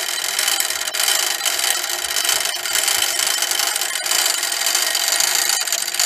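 Clockwork of a Gamewell weight-driven sector fire alarm box running, its brass gear train whirring steadily as the lead weight drives the mechanism to send the box signal.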